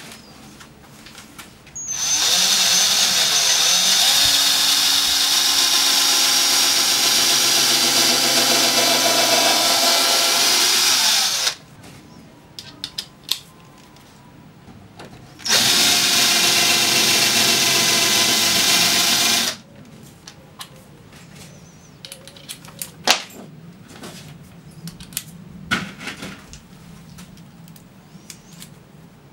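Cordless drill running into a plywood canoe hull with a steady whine, in two long runs of about nine seconds and then about four seconds. Scattered light clicks and taps follow.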